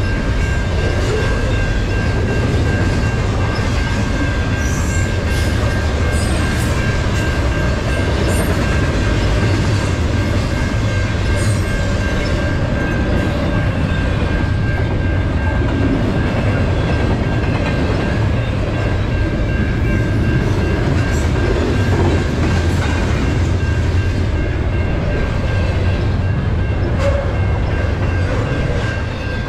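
Double-stack container train's well cars rolling over a level crossing: a steady loud rumble with wheel clatter. The crossing bell rings on as a steady high tone. The sound drops away at the very end as the train thins out.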